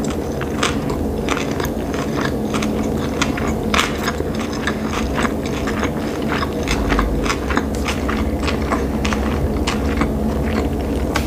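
Close-miked chewing of a mouthful of sushi roll: a run of small, irregular mouth clicks over a steady low hum.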